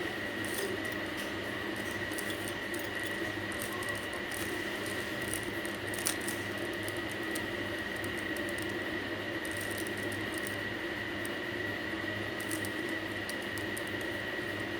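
3x3 Rubik's Cube being turned by hand, its plastic layers making soft, irregular clicks and rasps, with one sharper click about six seconds in. Under it runs a steady background hum with a faint high whine.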